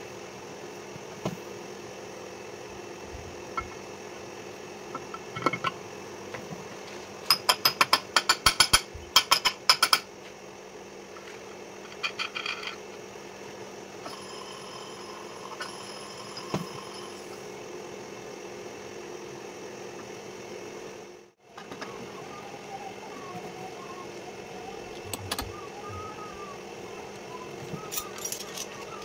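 Steady machinery hum in a metal workshop, with a quick run of sharp metallic clinks and rattles about a quarter of the way in as a part is handled on a metal lathe's chuck. Lighter metal knocks follow now and then, and faint warbling chirps come near the end.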